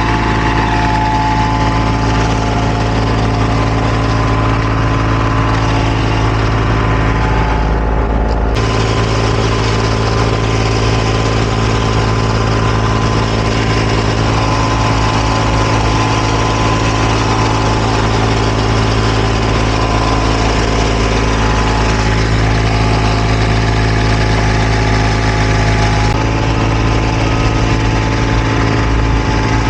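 Diesel engine of road-paving machinery running steadily at a constant speed.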